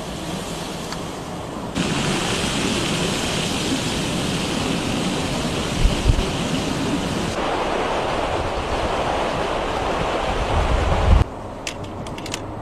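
Strong storm wind with driving rain and surging floodwater, a steady heavy noise with gusts thumping on the microphone. The sound changes abruptly twice, then drops to a quieter hiss with a few sharp clicks near the end.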